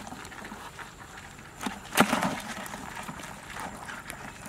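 Scattered faint knocks and one sharp click about two seconds in, from a hand grabbing crabs in a shallow pool of muddy water.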